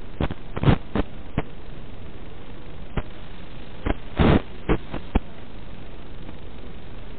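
Steady static hiss from an analog FPV video receiver's audio channel, with about ten sharp crackles and pops. They come in a cluster near the start and another around four to five seconds in.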